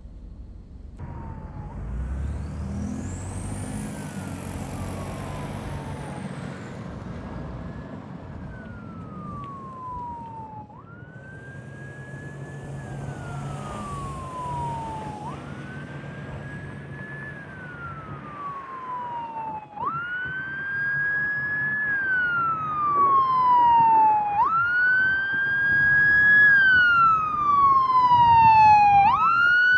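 Emergency-vehicle siren on the wail setting: slow sweeps that rise quickly and fall away over about four seconds, repeating steadily. It grows much louder over the second half.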